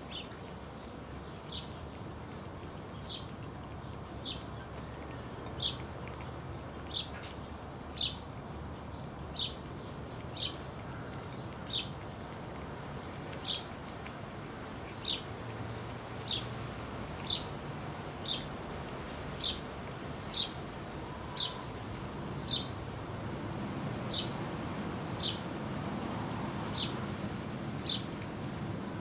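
A bird chirping over and over, one short high chirp about once a second, over a steady low background hum.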